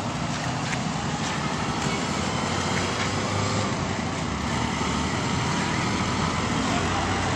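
Steady road traffic noise of passing motor vehicles, with a low engine hum that strengthens from about halfway.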